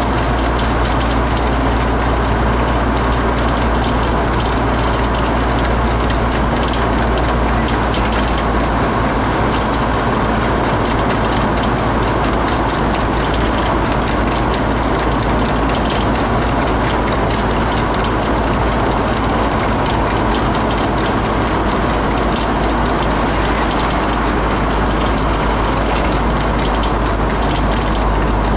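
Steady rumble and wind noise of a vehicle driving on a main road alongside harness horses pulling sulkies, with a fast, uneven clatter of hooves on tarmac running through it.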